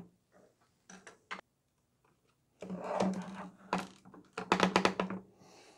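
Hard ABS plastic shell of a toy gel blaster being handled and worked apart: a few light clicks about a second in, then scuffing, then a quick run of sharp plastic clicks and rattles.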